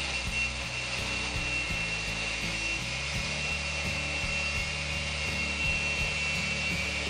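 DeWalt DWE4257 125 mm angle grinder with a cut-off disc, cutting through steel rebar: a steady high whine with the grinding of the disc in the metal.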